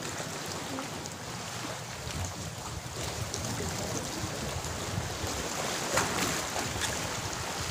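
Small sea waves washing and lapping against shoreline rocks, a steady wash of water, with wind buffeting the microphone.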